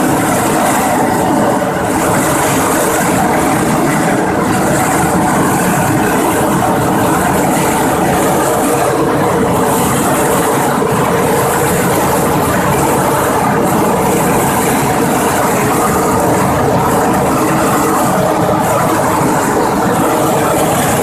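Clove sieving machine running: a steady mechanical din with a motor hum, and a bright hiss that swells and fades every second or two.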